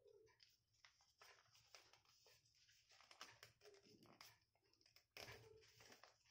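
Faint, irregular rustling and crinkling of a sheet of paper being folded and creased by hand, with a slightly louder crackle about five seconds in.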